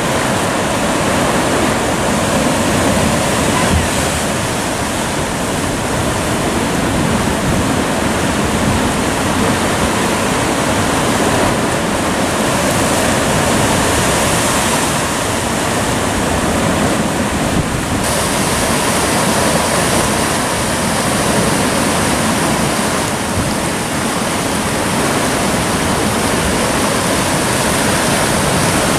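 Sea surf breaking and washing over rocks, a loud steady rush of water.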